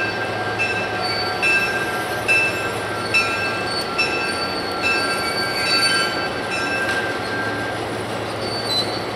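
An EMD diesel locomotive's bell ringing at a slow, even beat, about one strike every 0.8 seconds, over the low, steady running of the locomotive's diesel engine as it moves slowly. The bell stops about seven seconds in.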